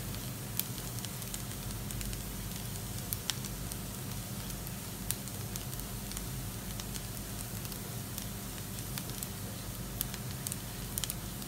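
Chopped onion and garlic frying in a little oil in a nonstick pan, with a steady gentle sizzle and scattered small pops and clicks as a spatula stirs them.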